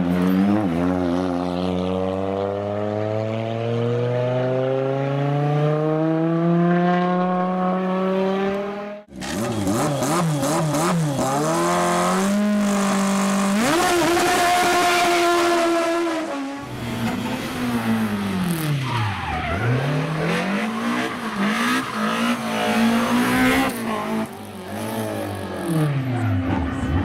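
Rally car engines at full effort in spliced clips. First an engine pulls hard with revs climbing steadily for several seconds. After a sudden cut, another car accelerates through a gear change. After a second cut, engines drop revs under braking and pick up again out of corners, several times, with a few sharp cracks near the end.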